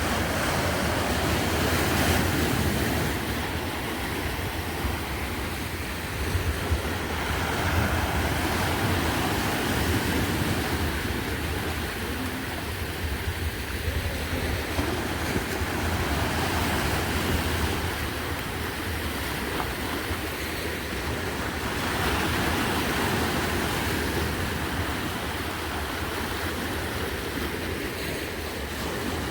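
Sea waves washing onto the shore, the surf swelling and easing every several seconds, with a low wind rumble on the microphone.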